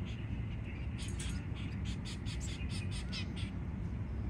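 Zebra finches in the nest making rapid, high-pitched chirps, about five a second, starting about a second in, over steady low background noise.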